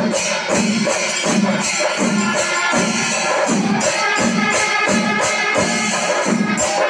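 Panchari melam in its fourth kaalam (tempo stage): massed chenda drums beating about twice a second under the constant clashing of elathalam hand cymbals.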